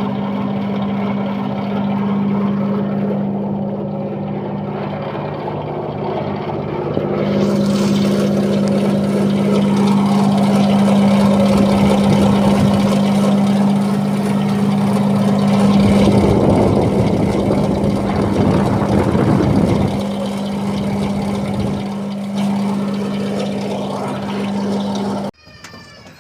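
Split air conditioner outdoor unit running with a loud steady hum and an abnormal rattling noise, the rattle strongest in the middle stretch; the unit's noise is the fault being shown. The sound cuts off suddenly near the end.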